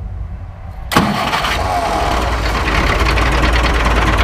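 Allis-Chalmers 615 tractor's diesel engine starting about a second in, then idling steadily.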